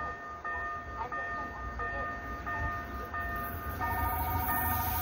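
Low rumble of an approaching cement freight train, growing louder towards the end, under steady electronic tones that step in pitch about every two-thirds of a second and turn into a fast pulsing beep about four seconds in.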